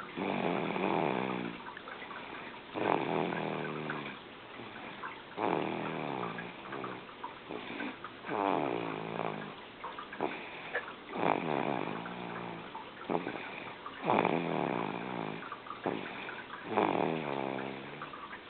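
Loud snoring: about seven snores, one every two and a half to three seconds, each a drawn-out rasp with a wavering pitch.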